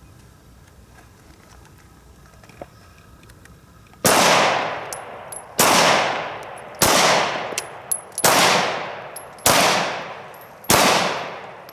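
Six shots from a Glock 43 9mm pistol, fired one at a time about 1.2 to 1.5 seconds apart, starting about four seconds in. Each shot is sharp and loud and leaves a long echo that fades before the next.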